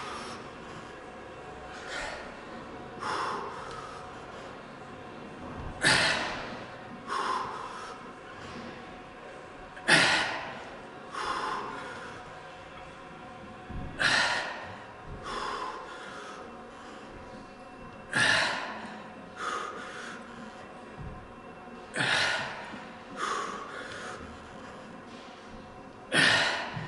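A weightlifter's forceful breaths during barbell back squats: a sharp, loud breath followed about a second later by a smaller one, the pair repeating about every four seconds, in time with the repetitions.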